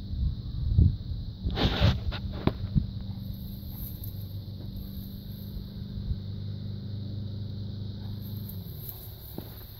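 An engine running steadily with a low hum, its pitch dropping slightly near the end. A few loud knocks and a brief rushing noise come in the first three seconds.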